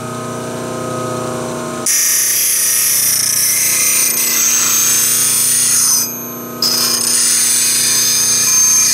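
Bench grinder with a 180-grit CBN wheel running with a steady hum. About two seconds in, a hook tool's edge is pressed to the wheel and a loud, high grinding hiss starts. It drops out for about half a second past the middle as the tool comes off the wheel, then resumes, as the hook's edge is reshaped with a light touch.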